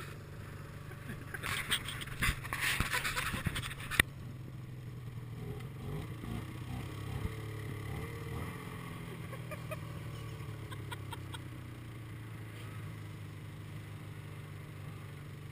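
Snowmobile engine running with a steady low drone. About a second and a half in, a loud scraping noise lasts a little over two seconds and ends in one sharp knock.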